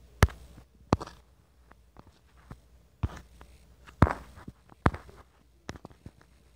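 Half a dozen sharp taps or knocks at uneven intervals, the loudest just after the start and around four and five seconds in.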